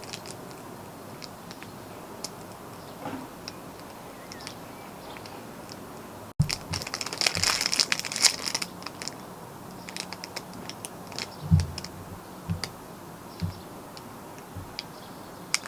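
Plastic packaging crinkling as items are handled, with a dense stretch of crinkling about six seconds in and scattered light clicks and taps around it, plus a few soft low thumps later.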